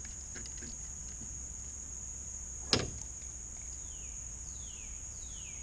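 A single sharp knock about three seconds in, against the aluminum jon boat, over a steady high-pitched insect drone. A few short falling whistles come near the end.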